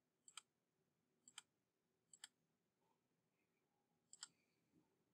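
Four faint computer mouse clicks, each a quick double tick of press and release.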